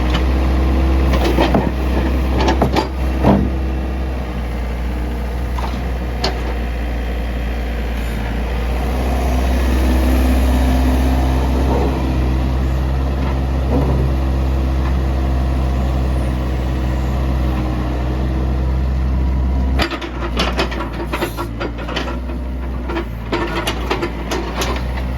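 Doosan DX60 mini excavator working: its diesel engine drones steadily under hydraulic load, with scattered knocks and clanks from the digging gear. About 20 s in the engine note drops and a run of rapid knocks and clatter begins.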